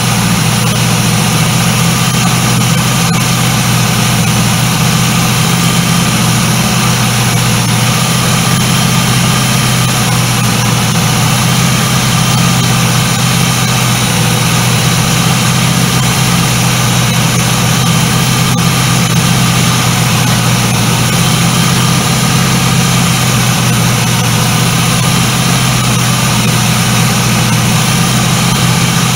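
1976 Ford LTD's V8 engine idling steadily while it warms up.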